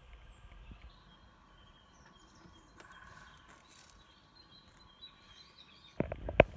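Quiet background with a few faint high chirps, then a quick cluster of sharp knocks and rustles near the end as the miniature pieces are handled close to the microphone.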